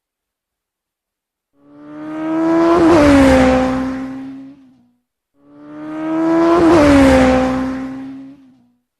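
A car passing by: an engine hum swells to a peak and fades over about three and a half seconds. The same pass-by is played twice in a row, starting after a second and a half of silence.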